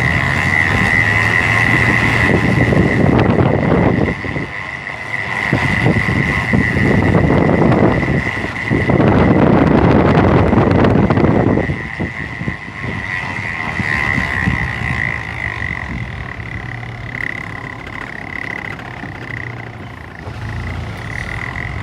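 1994 Ford Explorer Sport 4x4 running with a steady high-pitched whine over engine and road noise, which swells into louder rushing stretches a few times. The owner has ruled out the brakes, hubs and rotors and wonders whether a bad ABS sensor could be the cause.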